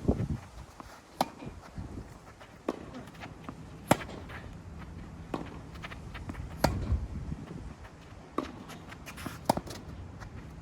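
Tennis rally in singles play: a ball being struck and bouncing, heard as sharp pops about every second or so, the loudest about four and seven seconds in. A low rumble of strong wind on the microphone runs under the hits.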